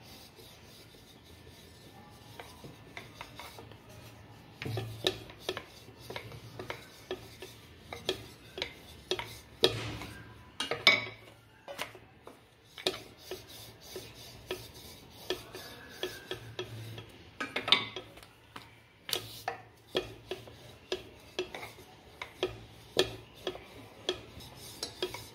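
Wooden rolling pin rolling out puran poli dough: repeated rubbing strokes with short, sharp knocks, about one or two a second, in an uneven rhythm.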